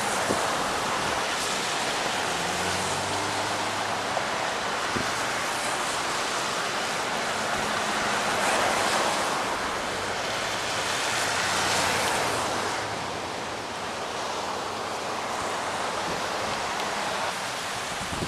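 Cars and trucks passing on a wet highway, their tyres hissing through water on the road, with faint engine hum under the spray. The hiss swells as vehicles go by, loudest about eight seconds in and again about twelve seconds in.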